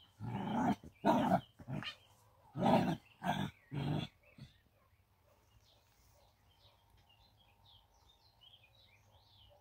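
Dog growling and barking in play, about six short bursts in the first four seconds. Faint bird chirps follow in the quieter second half.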